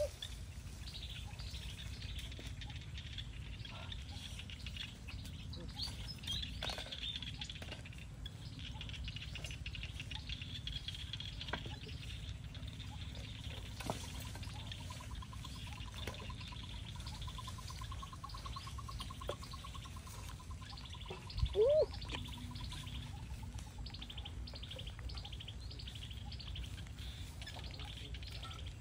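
Small birds chirping and twittering in the trees over a low steady background rumble. A long even trill runs for several seconds in the middle, and a single sharp knock, the loudest sound, comes about three-quarters of the way through.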